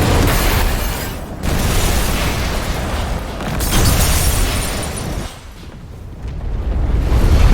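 Godzilla's atomic breath sound effect: an abrupt blast followed by a long explosive rumble with heavy bass that surges and eases, dips about five seconds in, and swells loud again near the end.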